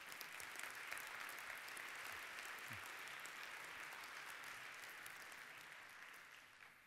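Audience applauding, slowly dying away near the end.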